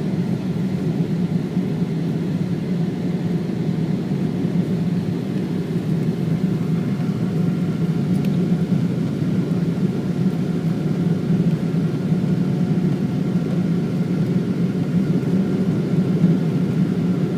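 Steady engine and airflow rumble inside the passenger cabin of a Boeing 777-200ER, with a faint whine held over it.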